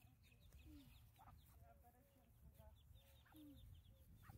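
Muscovy ducklings peeping: a faint, continuous string of short, high, falling chirps, with a few lower short calls from an adult bird among them.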